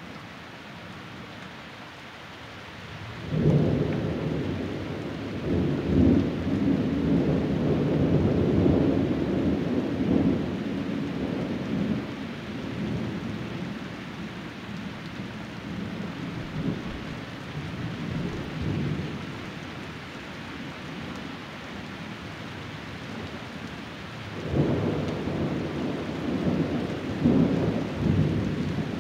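Thunder rumbling over steady rain: a long rolling peal breaks out suddenly a few seconds in, lasts about eight seconds and tails off, then a second peal begins near the end.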